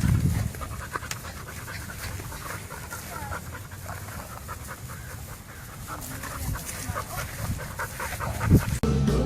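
A dog panting, a quick run of short breaths.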